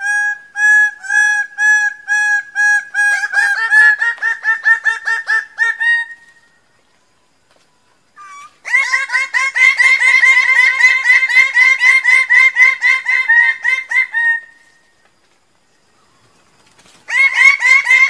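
Bird-of-paradise calling in loud runs of rapidly repeated notes. The first run starts slowly and speeds up, ending about six seconds in. A second, faster run of about five seconds begins around nine seconds in, and a third starts near the end.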